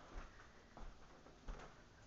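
Faint footsteps on bamboo flooring, about three soft steps with low thuds, at a steady walking pace.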